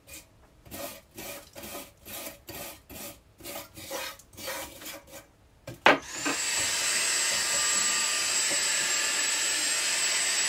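Wire brush scrubbing the rope channel of a cast-iron stove door, at about three strokes a second. About six seconds in, a cordless stick vacuum clicks on and runs steadily with a high whine, sucking up the loosened debris.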